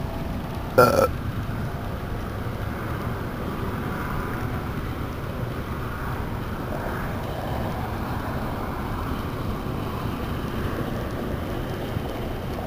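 Steady wind rumble on the microphone in an open bass boat on the water, with one sharp knock about a second in.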